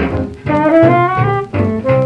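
1937 small swing band recording played from a Vocalion 78 rpm record: an instrumental passage of horns over a steady piano, guitar, bass and drums rhythm section, with a horn line sliding upward about half a second in.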